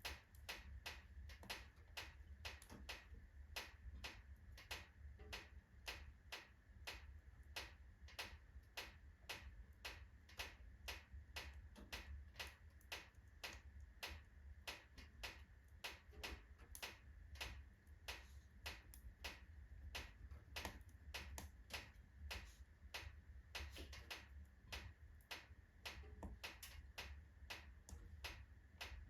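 Oak logs burning in a fireplace, crackling faintly with a quick, uneven run of sharp snaps, several a second, over a low steady hum.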